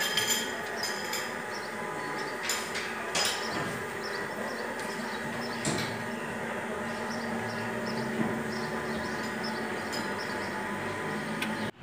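Car engine running steadily with a whine, under a power steering pump that has lost its fluid through a failed seal; several sharp knocks come in the first few seconds.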